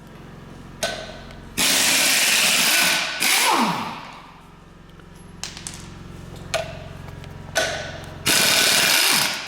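Power tool run in several bursts, each winding down with a falling whine, over a steady low hum, as bolts are run out of the engine's transmission conversion plate.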